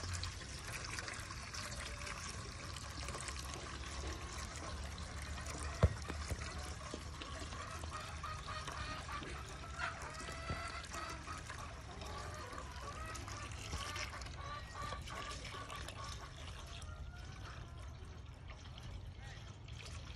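Water from a garden hose trickling steadily into a metal bucket as it fills. A single sharp tap sounds about six seconds in.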